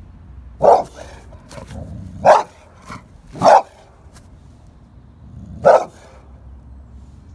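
Boxer dog barking: four loud single barks spaced one to two seconds apart, with a few quieter barks between them.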